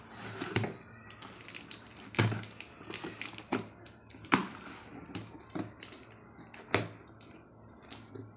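A knife slitting the packing tape on a cardboard shipping box, with scraping and rustling of the cardboard and several sharp knocks as the box is handled and its flaps are pulled open.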